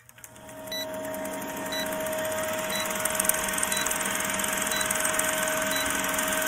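Film-countdown sound effect: a running movie projector's fast rattle with a steady hum and a short high beep about once a second as the numbers tick down. It fades in over the first second.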